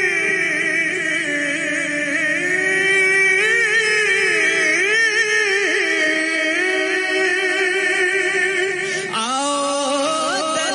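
A man singing a naat, an Urdu devotional song, solo into a microphone. He holds long notes with wavering melismatic ornaments, and a new phrase begins about nine seconds in.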